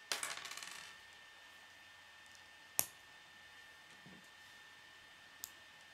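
Plastic K'nex rods and connectors clicking as pieces are handled and snapped together: a quick rattle of clicks at the start, one sharp snap about three seconds in, and a faint click near the end.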